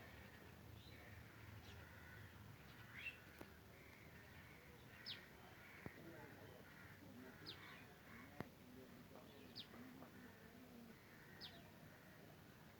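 Faint bird calls: short, high, upward chirps every second or two over a low hiss, with a few soft clicks.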